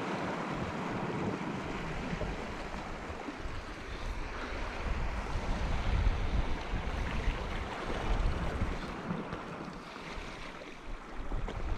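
Wind buffeting the microphone over the wash of sea waves against rocks.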